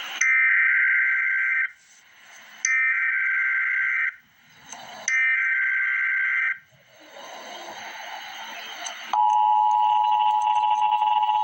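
Emergency Alert System header: three bursts of warbling digital data tones, each about a second and a half long, separated by short gaps of hiss. About nine seconds in, a steady, shrill attention tone begins and holds.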